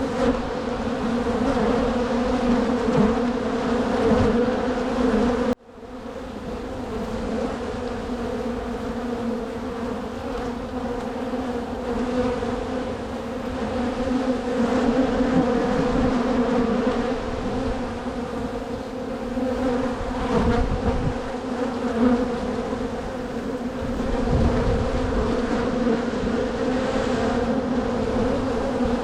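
Honey bees from a strong, opened hive buzzing in a steady hum, a low drone with a higher one above it, as brood frames are pulled and inspected for queen cells. The sound drops out abruptly for a moment about six seconds in, then returns.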